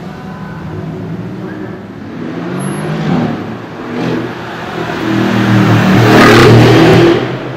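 Mercedes-AMG G-Wagon engine revving and accelerating, building in loudness over several seconds. It is loudest near the end as it goes by close, then drops away suddenly.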